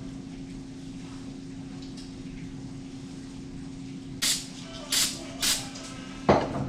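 Three short hissing sprays, each about a third of a second, the last two about half a second apart, followed by a single sharp knock a little after six seconds in, over a steady low hum.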